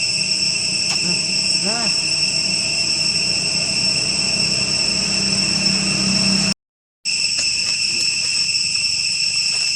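Steady high-pitched drone of insects, crickets or cicadas, running evenly. A short squeaky call is heard about two seconds in, and the sound drops out completely for half a second about seven seconds in.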